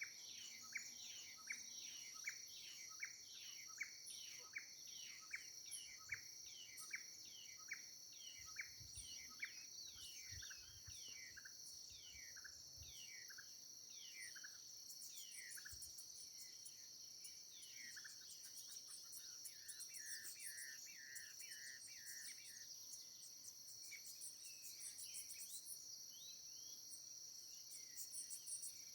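Birds singing over a steady high-pitched drone of insects. One bird repeats a short falling note about twice a second through the first half, then the calls thin out while the insect drone carries on.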